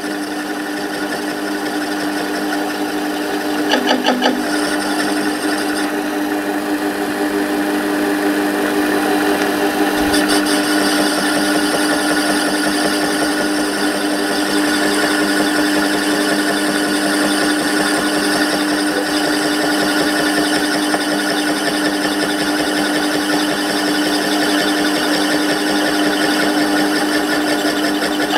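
Small metal lathe running, its tool taking a light cut around the outer diameter of a spinning metal disc, with a steady hum and a fine regular knocking. The knock is an interrupted cut: the cutter striking the one flat spot left on the disc each turn.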